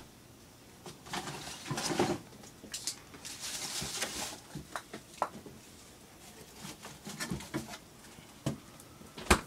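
Irregular knocks, rustles and soft steps of someone moving about and handling things, with a sharp click near the end.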